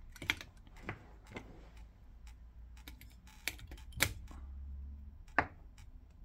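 Scattered sharp clicks and taps from handling a small Sennheiser body pack transmitter while switching it on, about half a dozen in all, the loudest about four and five and a half seconds in.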